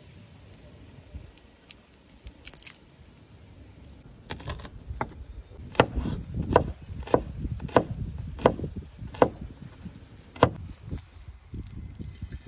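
Cleaver chopping garlic on a wooden cutting board: about seven sharp knocks, roughly one every three-quarters of a second, in the second half. Before that, garlic cloves are peeled by hand, giving small crackles and rustles.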